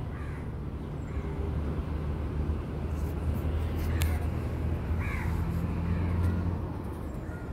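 Low, steady engine hum of a passing vehicle that swells and then dies away near the end, with a few crow caws over it.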